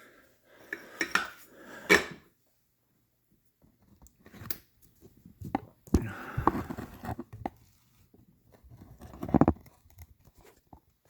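Handling noises of small tools and electronic parts being worked on at a bench: scraping, rustling and sharp clicks, in several short spells with quiet gaps between.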